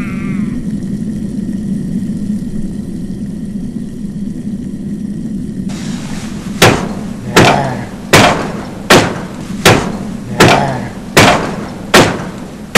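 A low steady hum, then from about halfway in, eight heavy thuds about three-quarters of a second apart: hands pounding on a weathered wooden plank wall.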